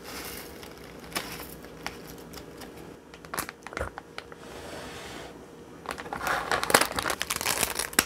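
Plastic packaging crinkling as it is handled, in irregular crackles that are busiest in the last two seconds.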